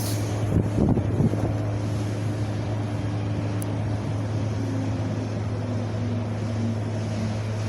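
Wind blowing steadily with a constant low rumble, gusting against the microphone about a second in.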